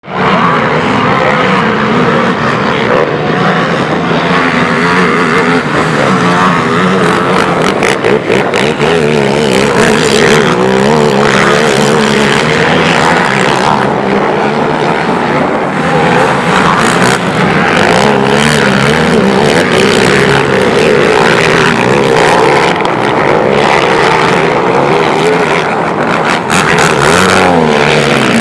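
Several racing quad ATV engines revving hard, their pitches overlapping and rising and falling without a break as the quads accelerate and shift around the track.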